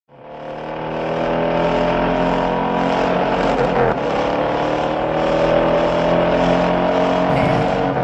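A car engine running at high revs, fading in over the first second or so, its pitch drifting slowly up and down.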